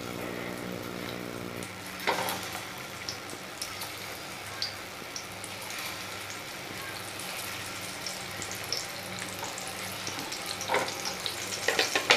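Jackfruit-seed kofta pieces frying in hot mustard oil in a wok: a steady sizzle with sharp crackles, busiest about two seconds in and again near the end.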